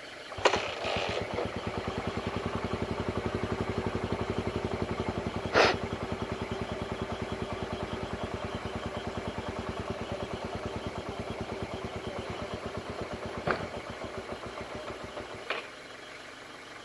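Suzuki Raider 150's single-cylinder four-stroke engine running at low revs with a steady, even pulse. It catches sharply just after the start and cuts out near the end, with a few clicks along the way.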